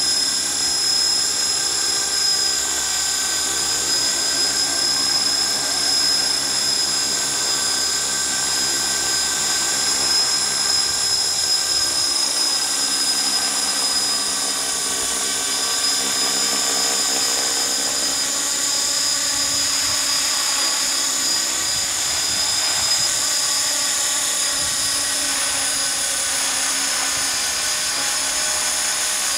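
450-size radio-controlled helicopter in flight: the steady high-pitched whine of its electric motor and gears, with the rotor running.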